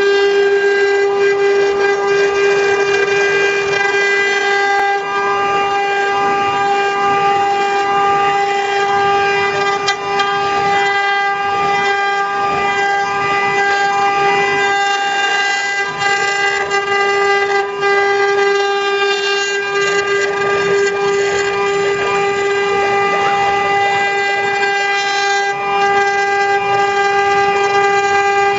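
JCUT 6090 desktop CNC router's electric spindle whining at one steady high pitch while its small bit carves a relief pattern into a wood board, with the hiss of the cutting under the whine.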